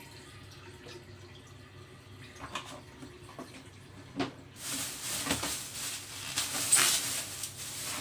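Thin plastic bag rustling and crinkling loudly for about three seconds, starting about halfway through, as it is opened and clothes are pulled out of it; before that only a few faint clicks.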